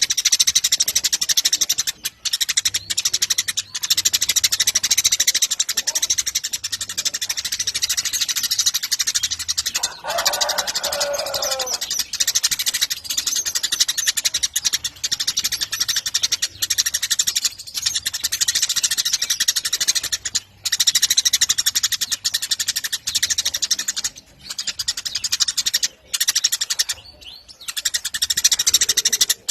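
Eurasian tree sparrows chirping rapidly and without pause in a dense, high chatter, broken by a few brief gaps. About ten seconds in, a lower, drawn-out call sounds for a couple of seconds.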